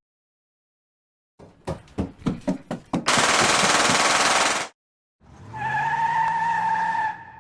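Edited-in sound effects: a quickening run of sharp, gunfire-like hits, then a loud hissing burst that cuts off suddenly, and after a short gap a steady electronic two-tone sound over a low rising hum.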